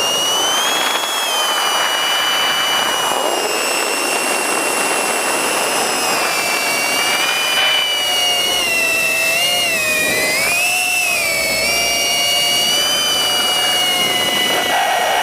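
FPV quadcopter's electric motors and propellers whining, several tones rising and falling in pitch together as the throttle changes, with a wavering dip and rise about ten seconds in.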